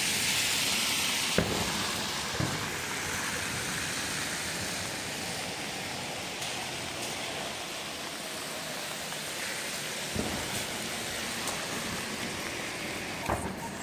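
Steady hiss of rain on a wet city street, with traffic on the wet asphalt blended in; it is a little louder in the first couple of seconds. A few short knocks come through, one about a second and a half in.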